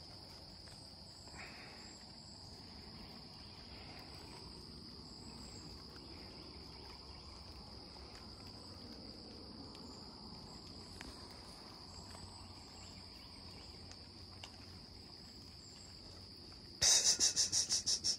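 Steady high-pitched chorus of insects in the woods. Near the end, a loud rapid rattle of about ten quick pulses cuts in for under two seconds.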